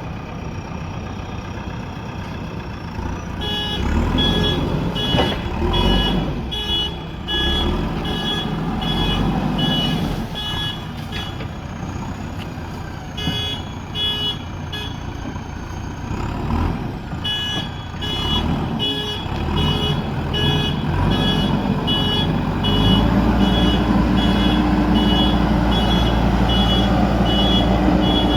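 JCB backhoe loader's diesel engine running, with its reversing alarm beeping about twice a second in several stretches. Near the end the engine note rises and gets louder as the machine works under load.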